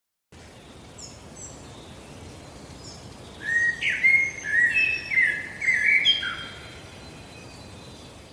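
A bird chirping in a quick run of short notes for about three seconds, starting about three seconds in, over a steady outdoor hiss.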